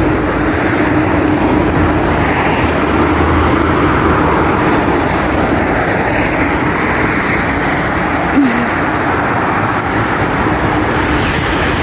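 Steady road traffic noise, swelling and easing slowly as vehicles pass, with a faint steady hum underneath.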